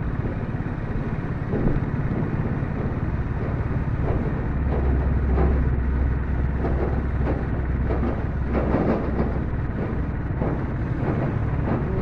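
Low engine rumble and road noise of a moving vehicle, heard from on board; it gets louder for a few seconds from about four seconds in.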